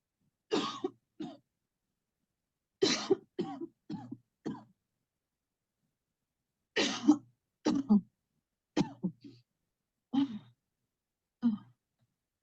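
A person coughing over and over in deliberate, forced coughs, in short bouts of one to four with pauses of a second or two between them.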